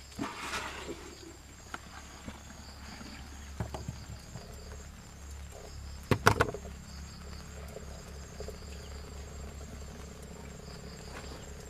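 Steady, pulsing insect chirring with a low hum underneath. Scattered light knocks are heard throughout, with a loud cluster of sharp knocks about six seconds in.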